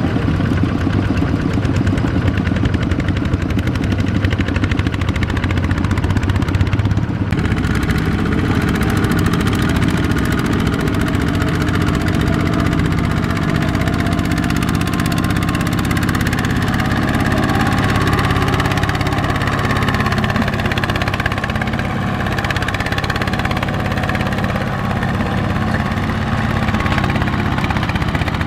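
Single-cylinder diesel engine of a two-wheel walking tractor running steadily while it hauls a loaded wooden trailer through deep mud. The engine's sound shifts about seven seconds in.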